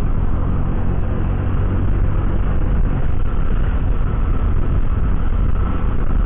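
Honda Vario 125 scooter being ridden at road speed: a steady rush of wind on the microphone over the engine and tyre noise.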